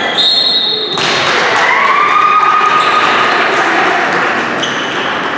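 Volleyball rally on a hard indoor court: high sneaker squeaks and a thud of the ball about a second in, then players and spectators cheering and shouting as the point is won.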